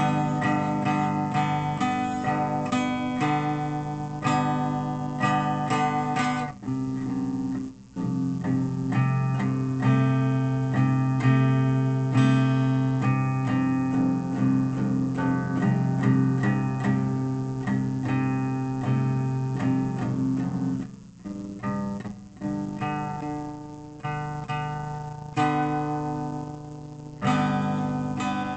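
Acoustic guitar playing strummed and plucked chords, breaking off briefly about seven seconds in and again around twenty-one seconds.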